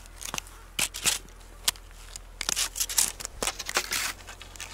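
Cross-country ski boots clicking into their bindings and skis scraping and crunching on packed snow: a string of irregular sharp clicks and crackles, busiest in the second half.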